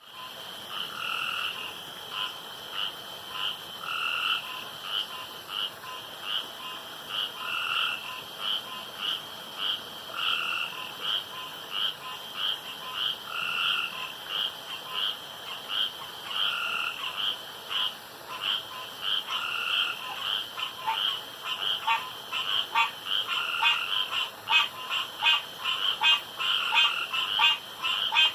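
Male frogs calling at a backyard pond at night, competing to croak loudest and longest. One call repeats about every second and a half over a steady high trilling chorus, and from about two-thirds of the way through a faster run of sharp clicking calls grows louder.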